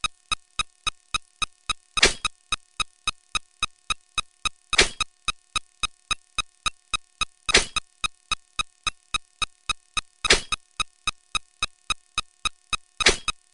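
A fast, even run of identical short electronic tick sound effects, about four a second, each with a steady pitched ring. Every two and three-quarter seconds a longer, louder sound effect breaks in, five times in all.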